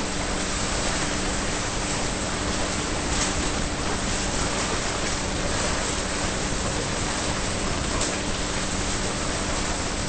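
Steady rushing and splashing of churned pool water as a swimmer's front-crawl strokes break the surface right by the microphone. Faint stroke splashes stand out now and then, over a low steady hum.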